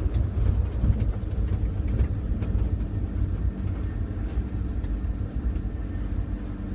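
Chevrolet C10 pickup driving: a continuous low engine and road rumble, with a steady engine hum settling in about halfway through.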